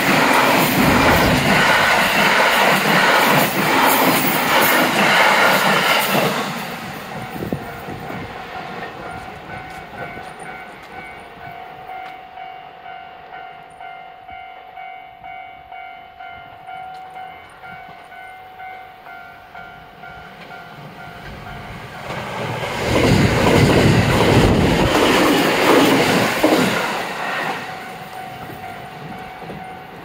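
An E531-series electric multiple unit passes close by with loud wheel and rail noise, which fades after about six seconds. A level-crossing alarm then rings with steady tones. Around 22 seconds in another train goes by loudly for about five seconds, and the alarm tones carry on near the end.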